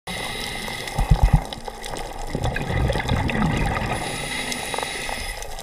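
Scuba divers' exhaled air bubbles from their regulators, heard underwater, with a cluster of low bubbling rumbles about a second in and another stretch of bubbling a little later.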